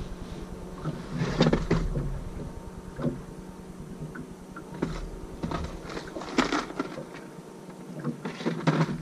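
Plastic tackle boxes and gear being rummaged in a boat's deck storage compartment: a scattered series of light clicks and knocks, over a faint steady low hum.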